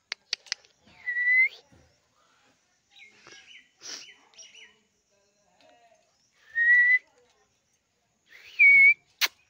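Alexandrine parakeet whistling: three short clear whistle notes, each about half a second and rising slightly at the end, spread over several seconds, after a quick run of sharp clicks at the start.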